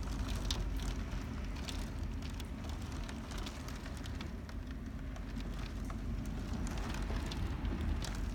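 Nor'easter storm wind buffeting the microphone as a steady low rumble, with scattered sharp crackles over it.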